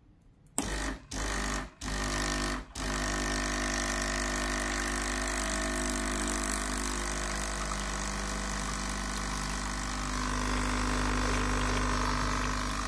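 Sunbeam EM6910 espresso machine's vibratory pump, fitted with a noise suppressor, switching on with three short stop-start bursts about a second in, then running with a steady hum. It is pumping against the pressure of an empty dual-wall basket, and through the suppressor the noise is very tolerable.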